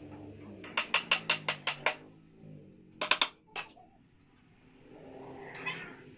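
Hammer blows on wood during chair assembly: a quick run of about eight sharp knocks, then three more and a single one. A low hum lies under them, and a broad noise swells and fades near the end.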